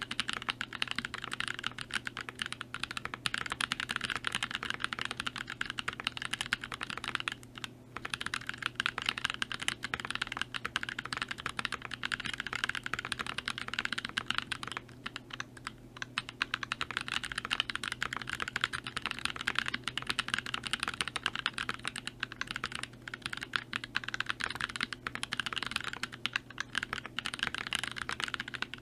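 Continuous typing on a custom mechanical keyboard with Gazzew Boba U4T tactile switches, a stacked acrylic Alice-layout case and GMK keycaps: a rapid stream of keystrokes. There are brief pauses about a quarter of the way through and again about halfway.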